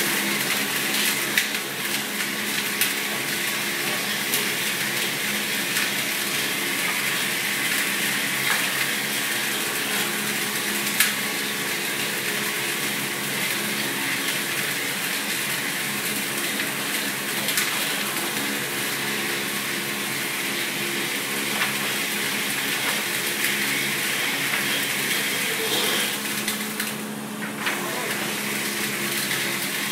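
Round-stick (dowel) machine running steadily, its cutter head turning square wooden blanks into round handles for shovels and brooms. There is a constant hum and hiss of cutting, with scattered short knocks.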